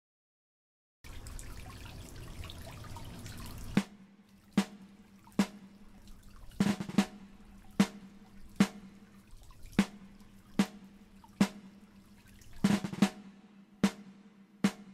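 Intro jingle: a rushing noise for about three seconds, then a slow, even beat of drum hits, roughly one every 0.8 seconds, with a few double hits.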